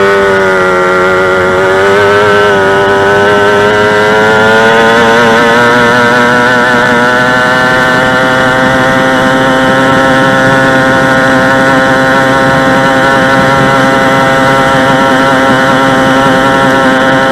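Two-stroke racing engine running at high revs. Its pitch wavers and climbs a little over the first few seconds, then holds steady and high.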